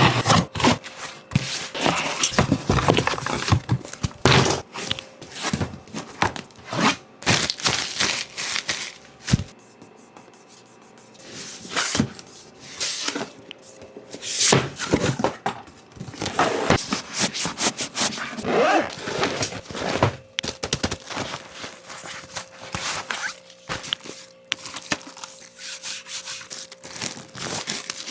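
Packaging being handled and opened by hand: rubbing, scraping and scattered thunks. There is a quieter lull about ten seconds in, and a faint steady hum underneath.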